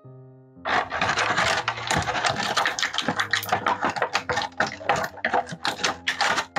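Toy packaging being handled in an unboxing: dense crinkling and scratching with many sharp crackles, starting about half a second in, over soft piano music.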